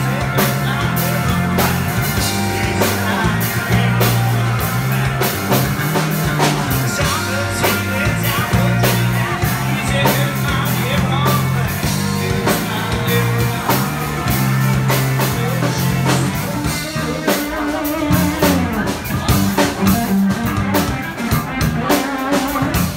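Live band playing rock music: electric guitar, a bass line and a drum kit with cymbal strikes. The steady bass line breaks off about three-quarters of the way through.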